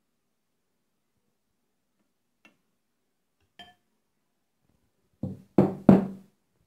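Metal cookware knocking on the stove: two faint clicks, then three loud clanks close together about five seconds in.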